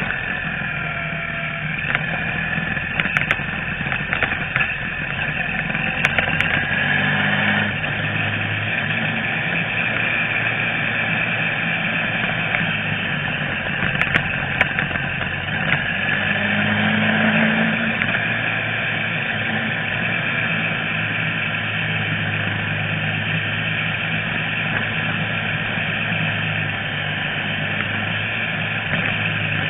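Motorcycle engine running under way through winding bends, its pitch rising and falling a little with the throttle, over steady wind rush on the onboard microphone. A few sharp clicks come in the first half.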